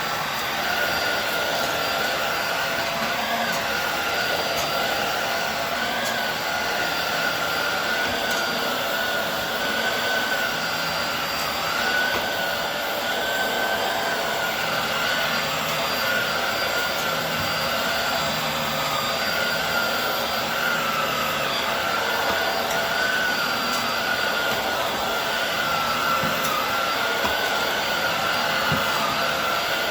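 Hoover Air Steerable WindTunnel upright vacuum cleaner running steadily as it vacuums a rug: a constant rush of suction with a high motor whine that wavers slightly in pitch.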